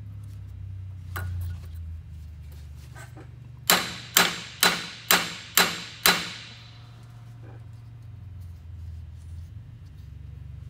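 Six sharp hammer blows, about half a second apart, on an old wheel bearing race used as a seal driver, driving a new input seal into a truck's power divider housing; each blow rings briefly.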